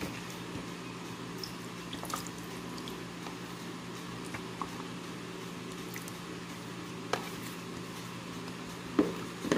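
Vinegar marinade with garlic cloves tipped from a plate over tilapia in a plastic container: quiet wet splashing and dripping, with a few light knocks of the dish, the clearest near the end, over a steady low hum.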